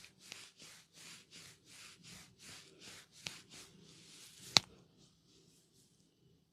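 Hands rubbing briskly over hair and scalp in a head massage, about three strokes a second, with a small click a little past three seconds in. A single sharp crack, the loudest sound, comes about four and a half seconds in, and the rubbing stops just after it.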